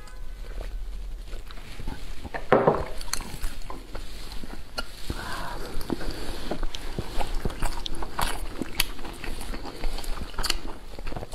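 Close-miked mukbang eating sounds: a sip from a drinking glass, then wet chewing of boiled dumplings dipped in chili sauce, with scattered small clicks of chopsticks and dishes. A louder thump comes about two and a half seconds in.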